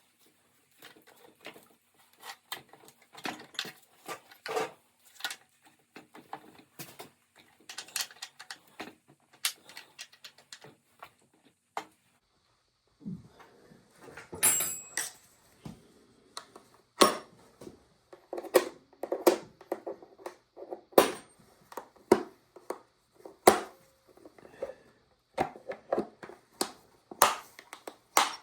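Irregular clicks, clinks and knocks of hand work on a chainsaw: small metal parts and tools being handled and set down, with sharper knocks in the second half.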